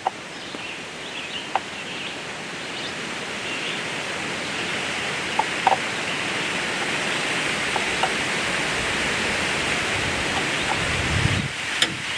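Steady rushing outdoor background noise that slowly grows louder, with a few light clicks as the chainsaw's new chain and bar are adjusted and tightened by hand.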